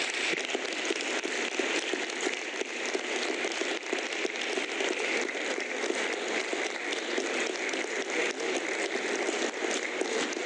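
Steady applause from a roomful of members of parliament clapping.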